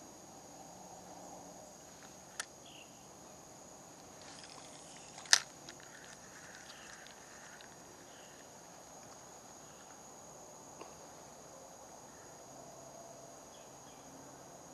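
Steady, high insect drone over faint outdoor ambience, broken by a sharp click about two and a half seconds in and a much louder sharp click about five seconds in, with a faint tick near the end.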